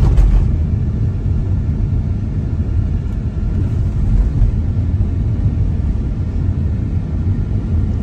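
Steady low rumble of a car in motion, heard from inside the cabin: engine and tyre noise on a rough road surface.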